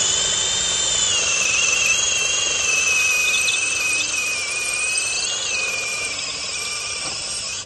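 APR AP17 cordless impact drill's motor running continuously with a high whine that sags slightly in pitch midway, then cuts off suddenly when the trigger is released.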